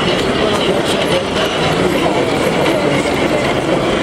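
Large-scale model railway wagons rolling along the track with light clicks from the wheels, over the steady murmur of a crowded exhibition hall.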